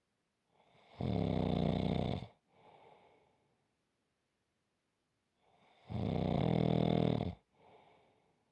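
Deep, rhythmic snoring: two loud, low-pitched snores about five seconds apart, each followed by a softer breath.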